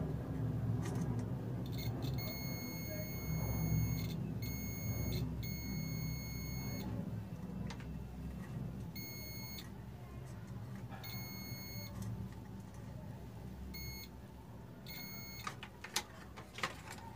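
Digital multimeter's continuity buzzer beeping in on-off spells, some brief and some lasting a couple of seconds, as the probes touch connected points while tracing which aux-jack pin is the ground. A steady low hum lies underneath, and a few sharp clicks come near the end.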